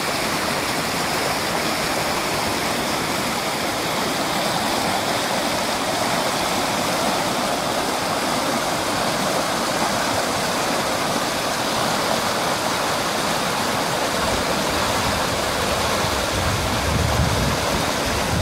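Muddy floodwater rushing steadily down a riverbed swollen by heavy rain. A low rumble joins in near the end.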